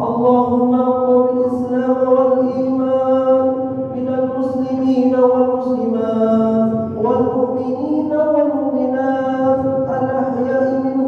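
A man's voice chanting in long, held melodic notes that glide from one pitch to another: Islamic chanting in a mosque, at Friday prayer.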